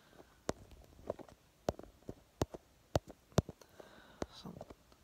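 A run of sharp, irregular clicks and taps, roughly two a second and varying in loudness, over a quiet background.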